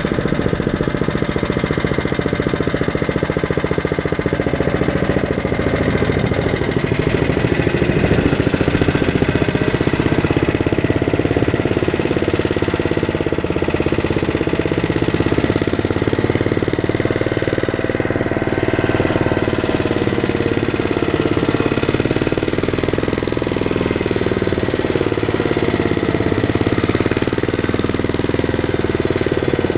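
Single-cylinder engine of a two-wheel walking tractor running steadily under load as the machine drives along a dirt road and onto a rising track, a rapid, even pounding beat.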